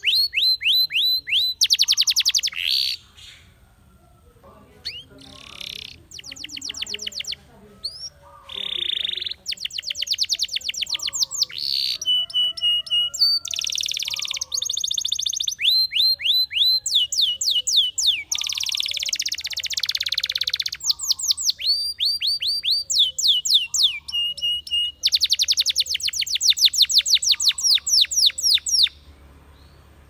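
Spanish Timbrado canary singing long phrases of rapid trills of fast repeated high notes, with a few short held whistled notes between them. There is a brief pause a few seconds in, and the song stops just before the end.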